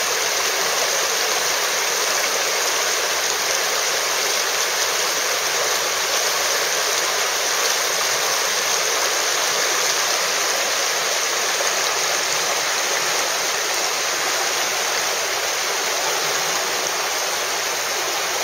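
Steady rush of river water running over rocky rapids.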